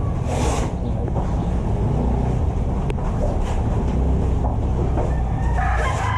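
A steady low rumble, with a rooster starting to crow near the end.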